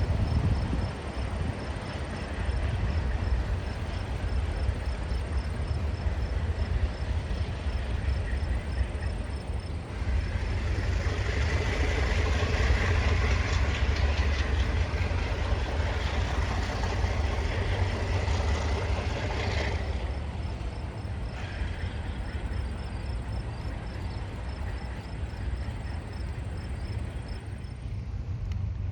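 ALCO diesel locomotive running with a steady low rumble. It grows louder and fuller about a third of the way in, then eases back after about ten seconds, as with a locomotive working past.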